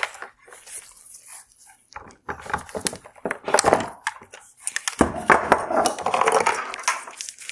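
Wire harness being pulled out of a plastic Hyundai Tucson headlight housing: an irregular run of clicks, scrapes and rattles of clips and wires against the hollow plastic shell. Quieter for a second or so near the start, busiest over the last couple of seconds.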